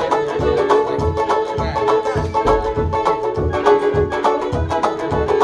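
Fiddle and banjo playing a tune together: a bowed fiddle line over quick plucked banjo notes, with a steady low beat about three times a second.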